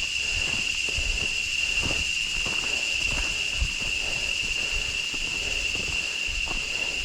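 Jungle insects droning steadily in one unchanging high pitch, with irregular low thumps of footsteps on the trail.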